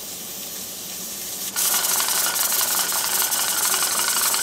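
Stovetop pressure cooker with a weighted regulator set for 15 pounds, venting steam as it comes up to pressure. A faint hiss slowly builds, then about a second and a half in it jumps to a loud steady steam hiss with a fast rattle as the regulator begins to let steam out.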